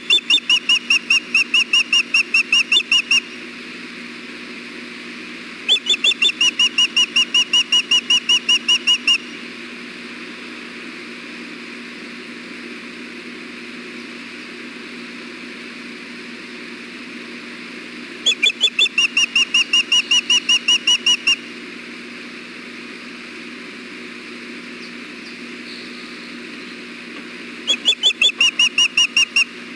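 Osprey calling: bouts of high, whistled chirps, about four or five a second, four bouts of roughly three seconds each, over a steady low hum.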